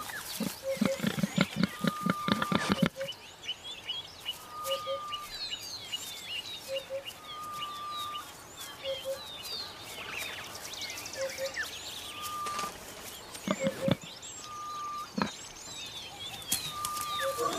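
Bush ambience full of bird chirps, with one bird repeating a short whistle and a double note about every two seconds. In the first few seconds there is a run of low, rapid warthog grunts.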